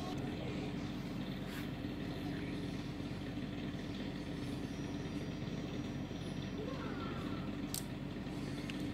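A steady, low mechanical rumble like a nearby engine running, with a couple of light clicks as small engine parts are handled.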